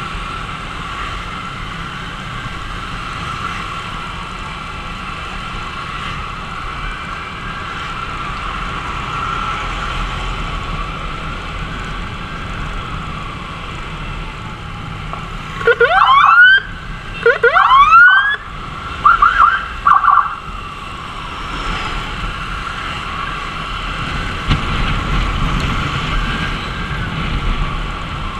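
Ambulance siren wailing steadily, its pitch slowly rising and falling, over the rumble of the motorbike and the road. About midway a much louder, closer siren gives two quick rising whoops and then a few short yelps.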